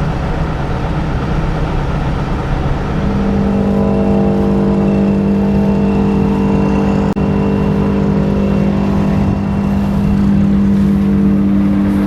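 Forage harvester running under power, a steady machine drone that, about three seconds in, rises to a stronger, steady humming tone as the machine spins up to working speed.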